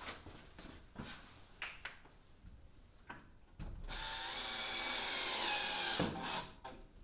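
A few light knocks and handling sounds on wood, then about three and a half seconds in a cordless drill runs for about two seconds driving a screw to fasten the plywood transom to the building jig, its pitch sagging slightly as the screw seats. It stops just after six seconds, followed by a knock.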